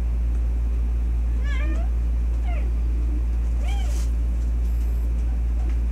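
Three short meows, each rising and falling in pitch, over a steady low hum.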